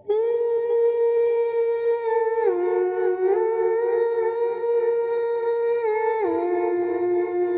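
Eerie, hum-like background music: one held tone that slides down in pitch twice, about two and a half and six seconds in.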